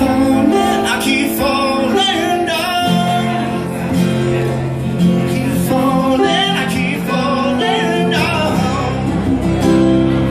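A man singing a song over guitar accompaniment, holding long wavering notes over sustained guitar chords.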